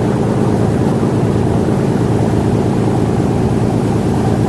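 Passenger ferry's engines running with a steady low drone.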